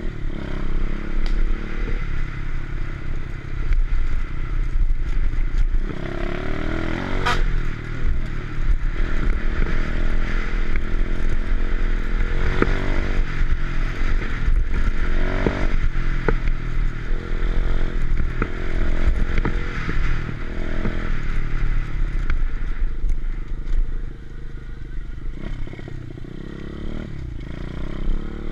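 125cc pit bike's single-cylinder four-stroke engine running hard under a rider, its pitch rising and falling again and again as the throttle is opened and eased off, with a heavy low rumble throughout.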